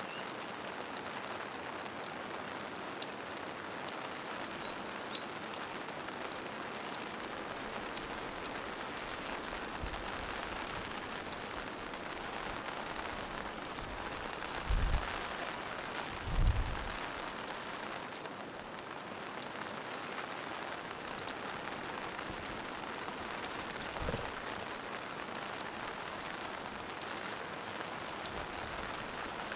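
Steady rain falling in a forest: an even hiss with scattered individual drop ticks. About halfway through come two short low thumps, a second or so apart, and a fainter one later.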